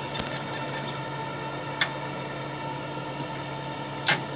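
Laser engraving machine with a rotary chuck humming steadily at rest. Rapid, even ticking from the rotary axis stops about a second in, and two sharp single clicks follow, the second one louder, as the machine sets up to mark a ring.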